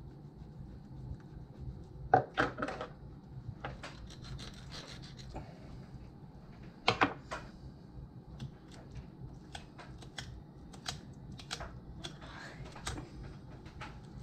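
Fillet knife cutting and scraping through a catfish on a wooden cutting board, with scattered short scrapes and clicks; the loudest come about two seconds in and again about seven seconds in.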